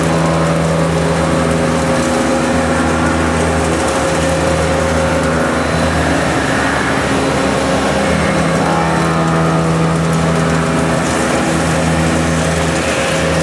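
Toyoda FH630SX horizontal machining center running under power. A steady motor whine sits over a pitched hum whose lower tones drop out and come back every second or two, as the machine's motors change speed or stop and start.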